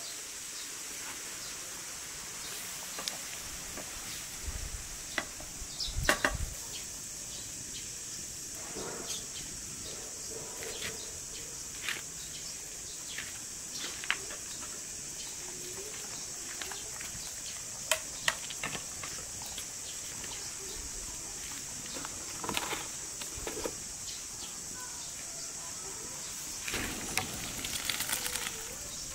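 A steady high insect drone, with scattered sharp knocks and clinks of cookware. Near the end, a rush of splashing as boiled rice and its water are poured from the pot into a plastic colander.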